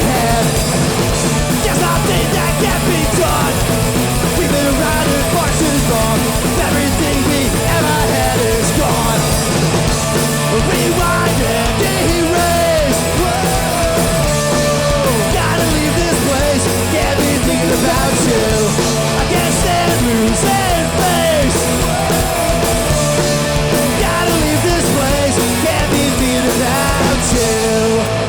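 Hardcore punk band playing live at full volume: distorted electric guitars, bass and drums with shouted vocals.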